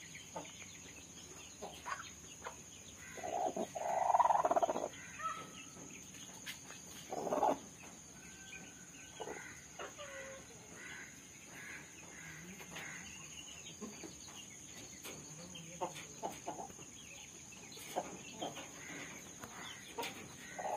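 Broody hen sitting on eggs, clucking: one longer, louder call about four seconds in and a shorter one near seven seconds, with soft short clucks between.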